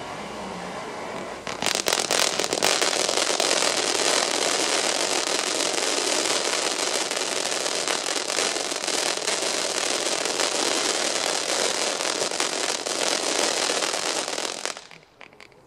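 Piromax No Limit Fountain, a ground firework fountain, burning. It hisses steadily at first, then about a second and a half in turns much louder into a dense crackling spray that runs on and stops suddenly about a second before the end as the fountain burns out.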